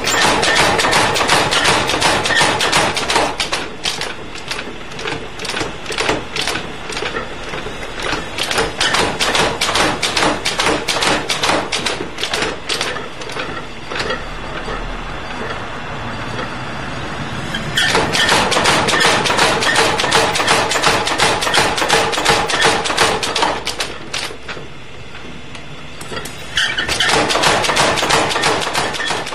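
ABNO Nr 1 power hammer pounding hot steel in rapid runs of blows, several a second, as tongs are forged. There are four runs, with pauses of a few seconds between them. During the pauses a steady machine noise carries on.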